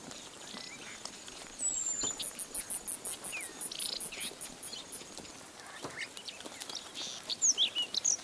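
Bush ambience of scattered short, high chirps and whistles. About two seconds in there is a fast, very high insect pulsing that lasts about a second and a half.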